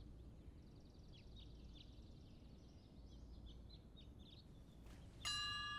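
Faint small bird chirps, a quick run of short high calls over a low, quiet background hum. About five seconds in, a bright chime-like ringing of several steady tones starts and holds.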